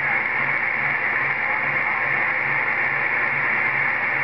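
CB radio receiver giving a steady whooshing hiss through its speaker after the transmitter is unkeyed, with a faint low hum pulsing about three or four times a second underneath.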